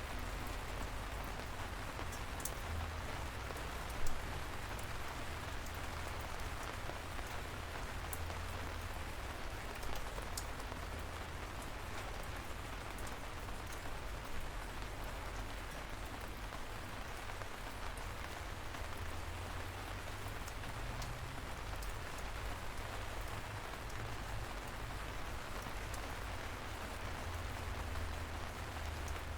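Steady rain falling, an even hiss with scattered individual drop ticks, and one louder sharp drop tick about four seconds in.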